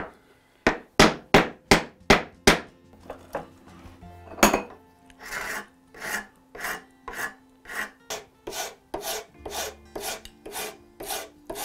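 Flat hand file being pushed across a piece of oak in a steady run of short rasping strokes, about two to three a second, shaping a wooden handle scale. The first half-dozen strokes are the loudest, with a brief pause about three seconds in.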